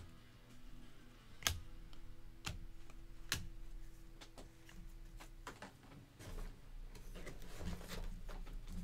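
Trading cards being handled and set down on a tabletop: three sharp taps about a second apart, then softer rustling and light clicks.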